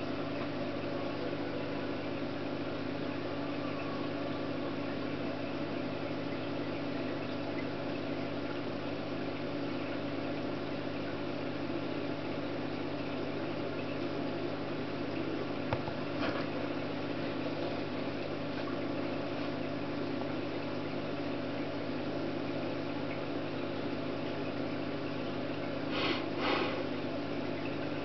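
Steady machine hum with several low tones, with a faint click a little past halfway and two soft knocks near the end.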